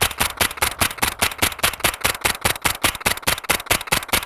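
Suppressed Sig Sauer MPX 9mm rifle, with an 8-inch barrel and a Dead Air suppressor, firing a rapid, steady string of shots, several a second, with no pause.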